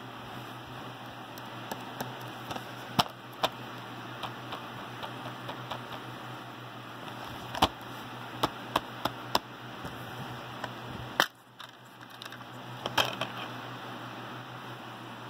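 Plastic DVD case being handled, with scattered clicks and taps and a sharp snap about two-thirds of the way through as the case is opened. A steady low hum and hiss lie underneath.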